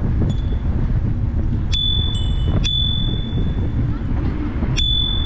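Bicycle bell rung with single bright dings, about five in all, spaced one to two seconds apart, each ringing out briefly, over a steady rumble of wind on the microphone while riding.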